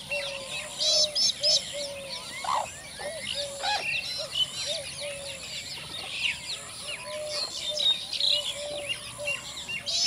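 Sarus cranes and other birds calling over a steady high cicada buzz. A short note repeats about twice a second throughout, with louder clusters of calls just after the first second and again later on.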